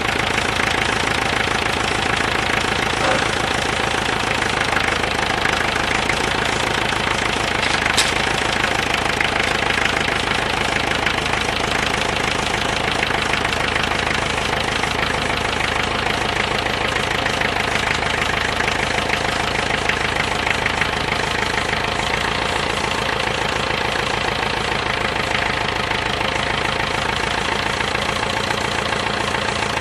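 Tractor engine running steadily, with a sharp click about eight seconds in.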